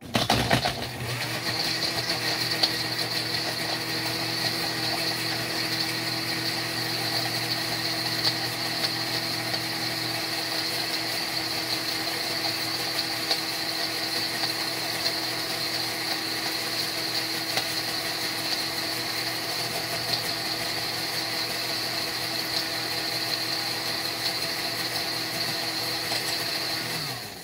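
Electric countertop blender running at a steady speed, blending fruit with ice cubes and milk. The motor starts suddenly, with some knocking in the first seconds, and winds down with a falling pitch near the end as it is switched off.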